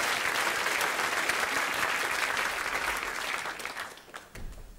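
Audience applauding, the clapping dying away about three and a half to four seconds in.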